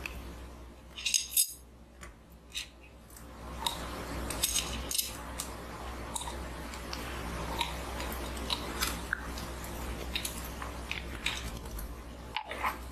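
Small brown glass bottle and its cap handled close to the microphone: scattered light clinks and taps, with a quick cluster of clinks about a second in, as the cap is worked off.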